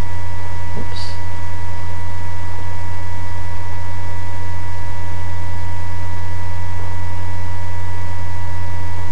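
Steady electrical hum and hiss in the recording: a strong low buzz with a few faint steady high whining tones above it, unchanging throughout.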